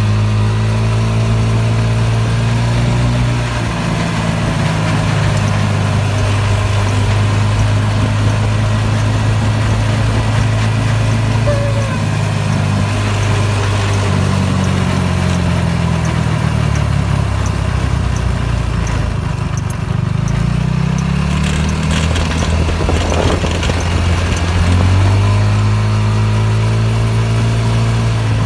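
Go-kart engine running while driving along, its pitch dropping a few seconds in, shifting up and down through the middle and rising again near the end.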